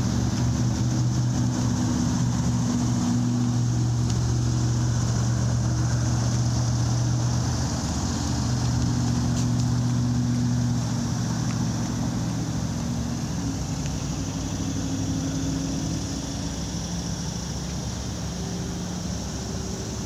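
Road traffic crossing a concrete highway bridge: a steady hum with a low engine drone that shifts in pitch, louder in the first half and easing off after about ten seconds.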